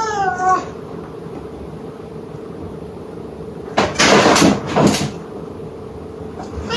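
A cat's meow, falling in pitch, ends about half a second in; about four seconds in comes a loud rushing noise in a few quick bursts lasting about a second.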